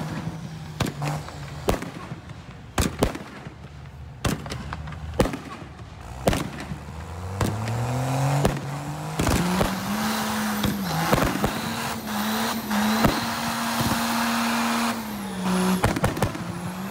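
Fireworks banging and crackling in a rapid irregular string. About six seconds in, a car engine revs up and holds at high revs over tyre screech in a burnout. The revs dip briefly near the end and rise again, while bangs go on over the top.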